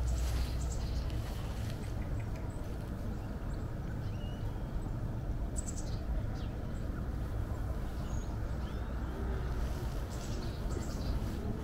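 Outdoor countryside ambience: a steady low rumble with small birds chirping briefly a few times over it.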